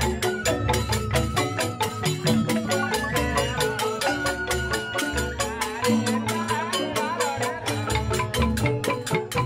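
Balinese joged bumbung gamelan playing live: bamboo xylophones struck in fast, dense runs of notes, with a recurring low beat underneath.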